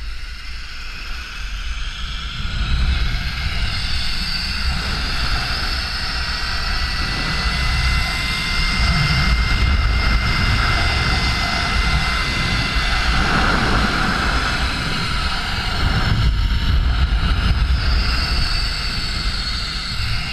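Zip-line trolley running fast along the steel cable with a steady high whine, under heavy wind rumble on the microphone. It grows louder over the first few seconds.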